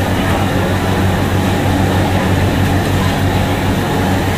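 A steady, loud mechanical drone: a low hum under an even rushing noise, unchanging throughout.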